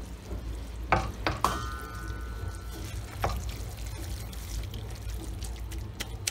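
A wooden spoon stirring thick, moist stewed cabbage in a stainless steel pot, with a few knocks against the metal. One knock, about a second and a half in, leaves the metal ringing for about a second and a half.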